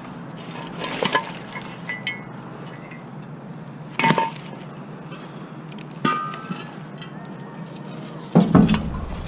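Metal clanks from handling scrap propane tanks: four sharp knocks a second or two apart, some with a brief metallic ring, the last the loudest and deepest.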